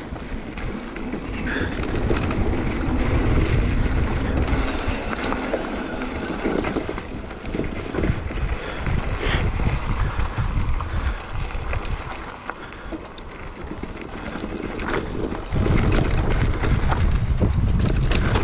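Wind rushing over the microphone and tyres rolling on a dusty dirt trail as an electric mountain bike descends, swelling and easing, with scattered knocks and rattles from the bike over bumps and stones.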